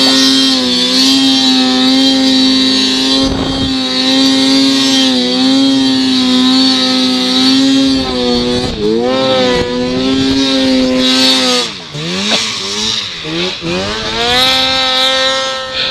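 An engine running at high, steady revs, easing off and picking back up several times, with a deeper dip about twelve seconds in.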